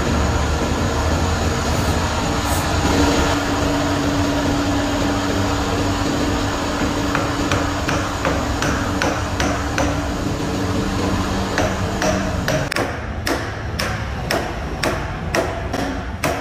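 Three-groove V-belt pulley being knocked onto an electric motor's steel shaft: light metal taps, then a quick run of sharp blows about two a second in the last few seconds, over a steady workshop drone.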